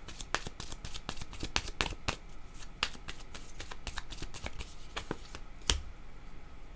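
A deck of oracle cards being shuffled by hand: a rapid, uneven run of crisp card clicks, with one louder snap near the end.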